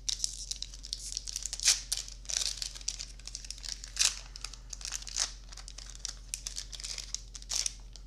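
A Magic: The Gathering booster pack's plastic wrapper crinkling as it is handled and torn open by hand. It makes a dense, high crackle with a few louder, sharper crackles in between.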